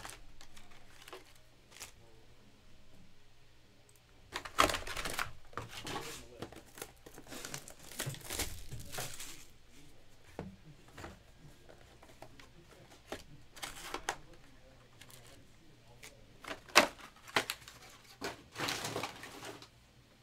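Plastic wrap crinkling and tearing and cardboard rustling as sealed trading-card hobby boxes are opened and their foil packs pulled out, in several separate bursts of handling.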